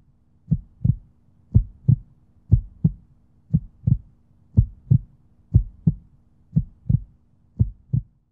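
Heartbeat sound effect: paired low thumps in a lub-dub rhythm, about one pair a second, over a faint steady drone.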